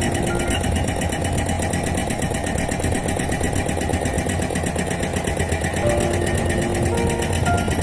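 Excavator-mounted hydraulic rock breaker hammering rock in a rapid, steady stream of blows, with the excavator's diesel engine running beneath.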